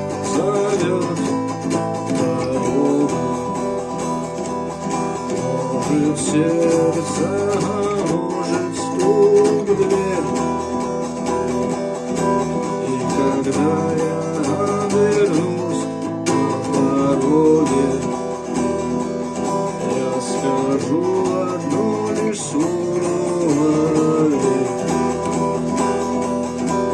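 Guitar music: an acoustic guitar playing the song's chords and melody without words.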